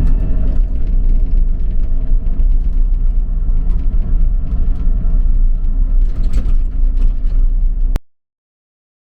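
John Deere 50G mini excavator's diesel engine running with the machine working, heard from inside the cab, with scattered clicks and knocks over the steady rumble. The sound cuts off abruptly about eight seconds in.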